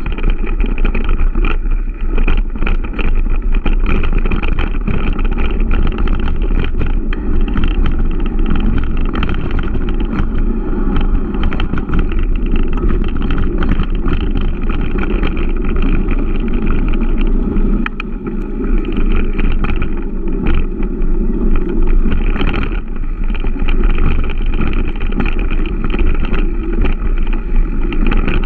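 Giant Stance 1 mountain bike rolling over a dirt trail, heard from a camera mounted on the bike's front end: a loud, steady rumble of tyre and wind noise, broken by frequent knocks and rattles as the bike hits bumps.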